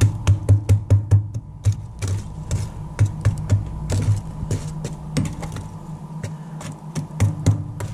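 Metal poker raking and knocking through the glowing coals and ash in a wood stove's firebox, breaking the embers up into a bed of hot coals. A quick run of sharp clicks and scrapes, about five a second, fills the first second and a half, then slower, scattered knocks follow, with a short cluster near the end.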